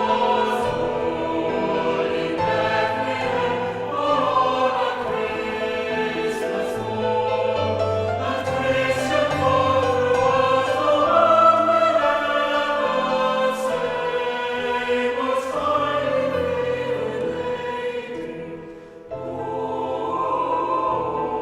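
A choir singing slow, held notes in a sacred, carol-like style. The sound dips briefly near the end, then picks up again.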